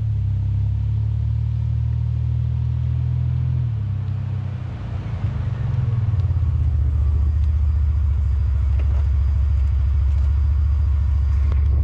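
Exhaust of a 2002 Chevrolet Blazer's 4.3-litre V6 through a new rear muffler, with a deep rumble as the truck accelerates over the camera. The note dips briefly about four seconds in as the transmission shifts up, then runs on steady and strong.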